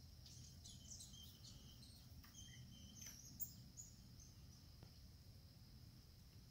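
Faint bird chirps, a scatter of short high calls in the first half, over a low background rumble, with one sharp click about three and a half seconds in.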